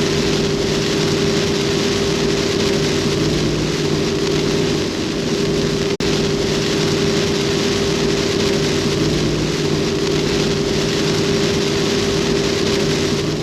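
A brief, heavy burst of rain hisses steadily on a Jeep Wrangler Rubicon 392 driving at highway speed, over a constant low drone from the moving vehicle. The sound cuts out for an instant about halfway.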